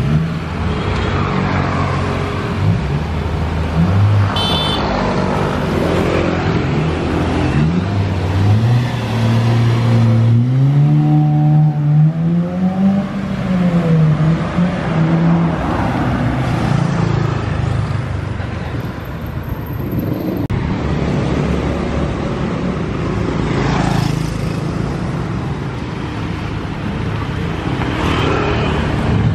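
Honda Brio engine running through an aftermarket NDK DK-03v3 bass muffler as the car is driven. The engine pitch climbs smoothly about ten seconds in and falls away again a few seconds later, with motorbike traffic in the background.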